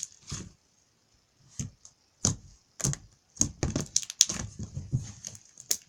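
Fluffy slime being squished and poked by hand, giving a run of irregular clicks and pops that come thick and fast after the first second or so.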